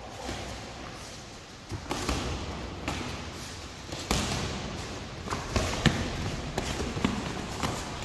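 Boxing gloves striking training equipment: irregular sharp thuds and slaps, sparse at first and coming more often about halfway through, at times three in quick succession.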